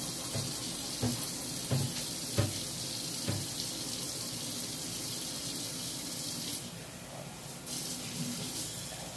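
Water running steadily from a tap, with about five soft knocks in the first three and a half seconds. The flow thins near the end.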